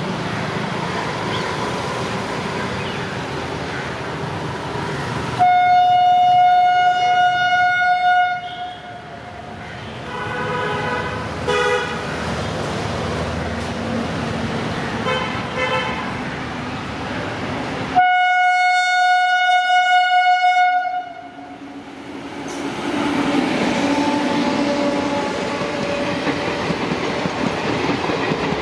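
Indian Railways WAP-7 electric locomotive's horn sounding two long single-note blasts, one about five seconds in and one about eighteen seconds in, each about three seconds long, over the running noise of the approaching train. Fainter, shorter horn notes come between them, and near the end the passing coaches add rail noise.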